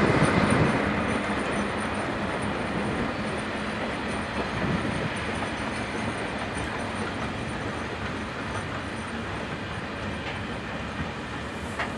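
A works train of hopper wagons hauled by a yellow diesel locomotive, rolling along newly laid high-speed line track on a continuous load-test run. The steady rumble of wheels on rail fades as the train draws away.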